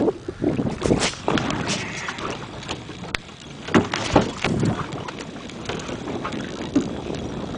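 Wind buffeting the camera microphone in irregular gusts over open water.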